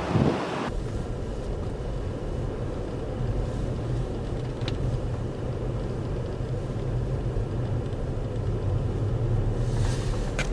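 A motor vehicle's engine running with a steady low rumble, growing a little louder near the end.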